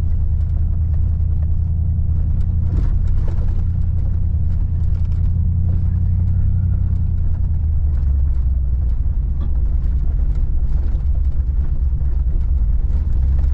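Pickup truck driving on a back road: steady low engine and road rumble.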